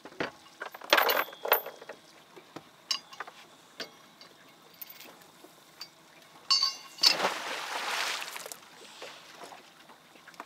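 Gear being handled in a fishing boat: scattered light clinks and knocks, then a brief squeak followed by a rushing noise lasting about a second and a half, a little past the middle.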